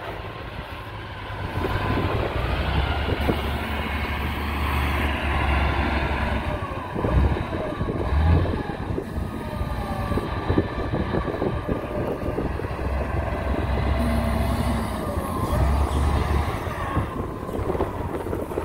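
Komatsu GD625A motor grader's diesel engine running under load, a steady low rumble with scattered crackles and knocks, louder around seven to eight seconds in.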